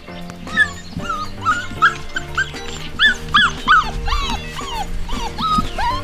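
Six-week-old Portuguese Water Dog puppies whimpering and yipping in short, high cries, a few a second, starting about half a second in, over background music.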